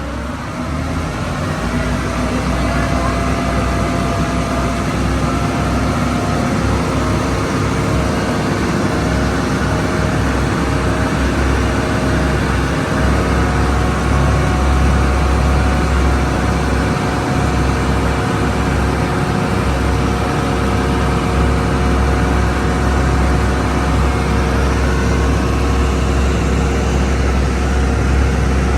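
Tour boat's engine running hard, with a deep rumble and steady tones that shift slightly in pitch; it grows louder over the first couple of seconds as the throttle opens.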